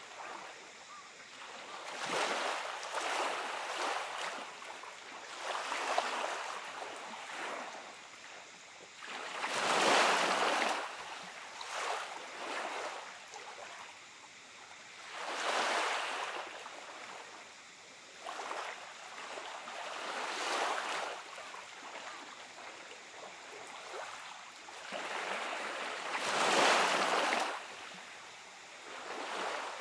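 Small waves washing up the beach and drawing back, a hiss that swells and fades every few seconds. The biggest surges come about ten seconds in and again near the end.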